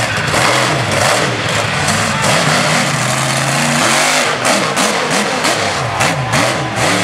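Monster truck engine revving up and down again and again, with one longer climbing rev as the truck launches over the crushed cars. In the second half come a run of sharp knocks and crunches as it lands on and drives over the car bodies.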